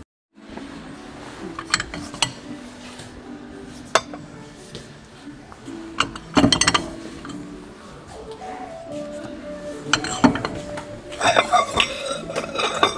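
Ceramic dinner plates clinking against one another as they are handled, with single clinks early on and quick runs of clinks about six seconds in and again near the end.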